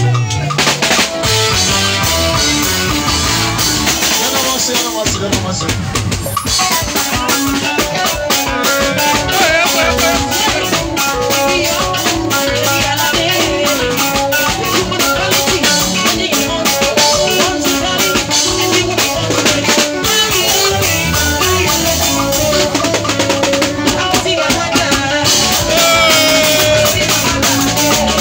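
Live band music with a drum kit and electric guitar playing a steady dance beat.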